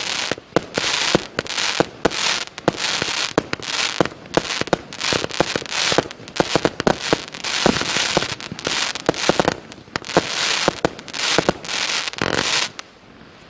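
A 200-shot, 0.8-inch firework cake firing in rapid succession, sharp shots mixed with bursts of noisy crackle. The barrage stops shortly before the end.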